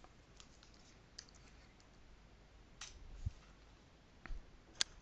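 Faint, scattered clicks of a computer keyboard and mouse, with one sharper click shortly before the end.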